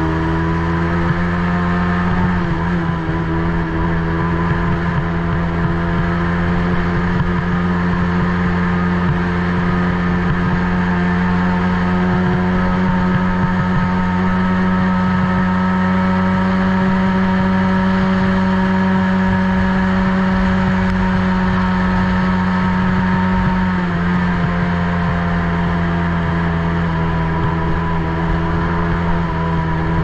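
Small youth ATV engine running at high, steady revs, heard close up from the quad itself over a constant rush of noise. The revs climb in the first second or two, hold, then drop briefly about 24 seconds in and pick up again.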